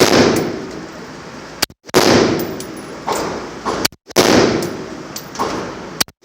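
AR-15 rifle fired in slow, deliberate single shots, a loud report about every two seconds, each trailing off in a long echo, with fainter sharp cracks between them.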